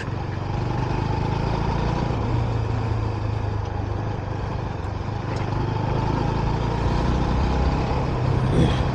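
Motorbike engine running steadily under way, with road and wind noise; the rider feels the bike is due for a service. A short louder sound comes near the end.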